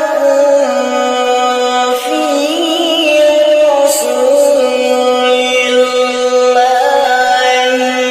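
Male Qur'an reciter (qori') chanting in melodic tilawah style, drawing out long held notes with ornamented, wavering pitch.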